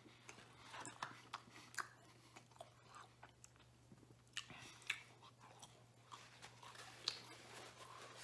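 Quiet close-up chewing of deep-dish pizza: faint scattered wet mouth clicks and smacks, a few slightly louder than the rest.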